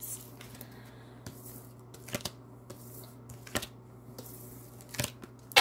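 Oracle cards being picked up and gathered off a glossy tabletop: a handful of light card clicks and slides, with a sharper tap near the end.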